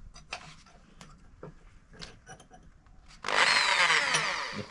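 Corded electric hand drill starting about three seconds in and running loud, its motor whine wavering in pitch as the bit bores into a piece clamped in a bench vise. Before it, only a few faint clicks and taps.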